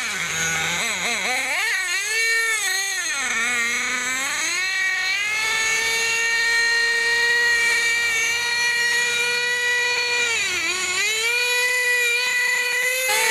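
Small nitro engine of a radio-controlled monster truck running at high revs, a steady high buzz. Its pitch swoops down and back up several times in the first few seconds and once more near the end, as the throttle is eased and reopened.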